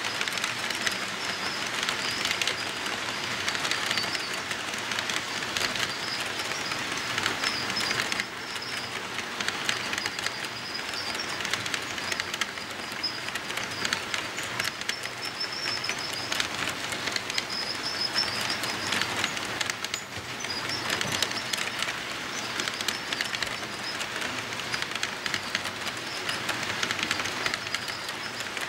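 HO-scale model freight cars rolling past on sectional track: a steady rolling rumble full of rapid clicking as the wheels cross the rail joints, with a high wavering squeal that comes and goes.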